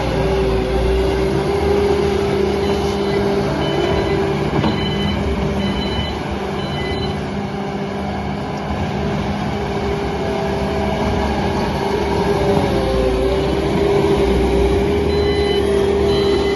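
Sunward skid steer running with a Niubo KBX 180 forestry mulcher head fitted: diesel engine working steadily under load with a constant whine, and a few short high beeps now and then.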